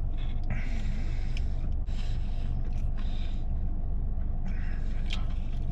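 A steady low rumble with a constant hum underneath, and every so often brief soft noises of a person chewing food.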